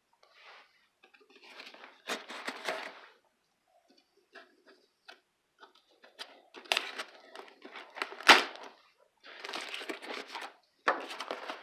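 Packing tape being ripped off a cardboard shipping box and the flaps pulled open. The sound comes in bursts of tearing and rustling with scattered clicks, and one sharp crack a little after eight seconds in.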